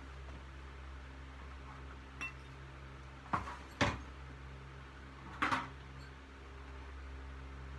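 Pieces of scrap metal clanking as they are tossed onto a pile. A light clink comes about two seconds in, two loud clanks follow in quick succession around three and a half seconds, and another comes about five and a half seconds in, all over a steady low hum.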